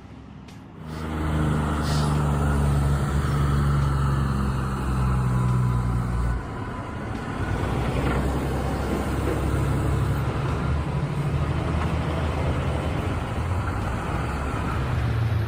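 Heavy truck's diesel engine running loud and steady under load, easing off about six seconds in, then pulling on.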